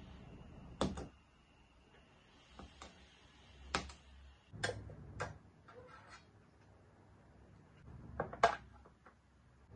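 Sharp little pops as a wooden skewer punctures plastic cling wrap stretched over a glass bowl of dough, about five in the first half. Near the end come two louder knocks close together, as things are set down on a plastic cutting board.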